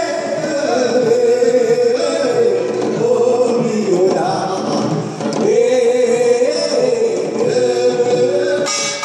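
Amplified male voice singing a Korean traditional folk song in long, drawn-out notes that slide and bend in pitch. The percussion is sparse under the voice.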